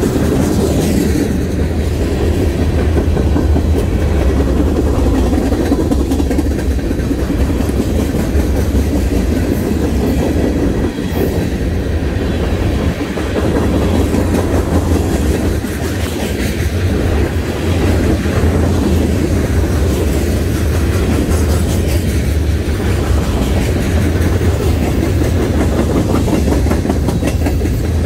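Freight train of boxcars, covered hoppers and tank cars rolling past: a steady rumble of steel wheels on rail, with repeated clicks as the wheels cross rail joints.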